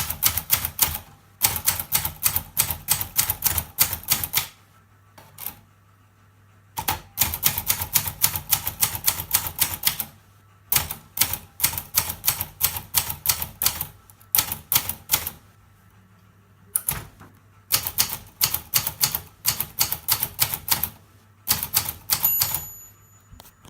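Olympia Traveller C manual portable typewriter being typed on: runs of sharp key strikes at about four to six a second, broken by short pauses. A brief thin ringing tone sounds near the end.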